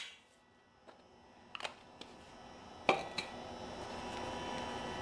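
A few light clicks and knocks of small objects being handled and set down on a steel work table, over a faint steady background hum.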